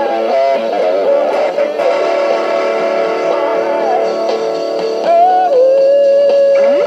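Electric guitar playing a lead line of long held notes, with a string bend about five seconds in and sliding notes near the end.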